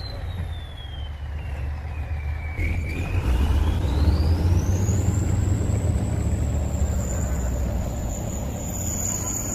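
Heavy vehicle engine rumbling steadily. A thin high whine falls in pitch over the first few seconds, then climbs and holds at a high pitch.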